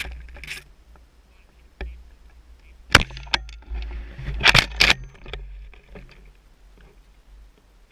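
Shotgun shots during a duck hunt: a sharp crack about three seconds in, then a quick run of cracks about a second and a half later.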